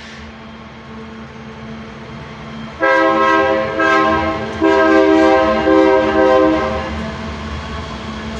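Diesel freight locomotive's multi-note air horn sounding in a few blasts over about four seconds, starting about three seconds in, over the steady rumble of the passing diesel locomotives.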